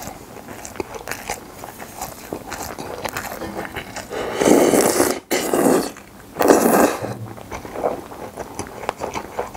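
A person slurping saucy Chinese glass noodles off a wooden spoon: two loud slurps, about four and a half and six and a half seconds in, with wet chewing and lip-smacking clicks around them.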